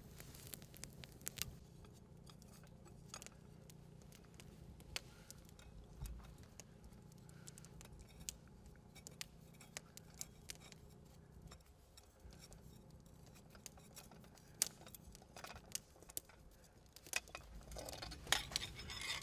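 Faint irregular clicks and small sharp knocks over a low steady hum, with rustling growing louder near the end.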